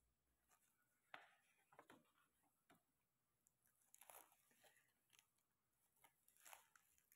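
Near silence, broken by a few faint rustles of a packed georgette saree and its plastic wrapping being handled.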